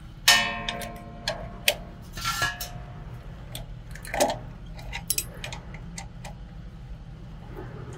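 Metal tools and screws clicking and clinking while the automatic voltage regulator (AVR) is unscrewed from a petrol generator's alternator. A sharp ringing metal clink comes about a quarter second in, followed by scattered lighter clicks.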